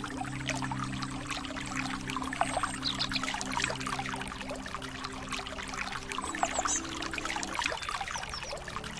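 A stream trickling and splashing, with a few short bird chirps around three seconds in and again near six and a half seconds. Soft held music tones sit underneath and fade out near the end.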